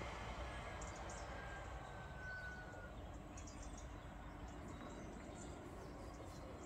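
Faint outdoor morning ambience: a low steady background rumble with scattered faint bird chirps, and one thin bird-like whistle about two seconds in.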